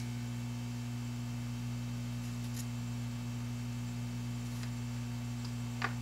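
Steady low electrical mains hum, with a few faint ticks while pads on a circuit board are being tinned.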